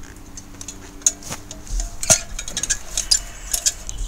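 Metal camp cookware and utensils clinking and knocking together as they are handled: a sharp clink about a second in, a louder one about two seconds in, and a quick run of clinks near the end.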